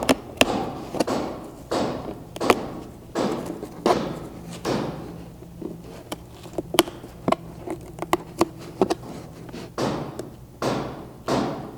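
Razor blade cutting the net out of a plastic door panel: a run of short scraping cut strokes, each lasting about half a second, mixed with many sharp clicks and taps as the panel and net are handled.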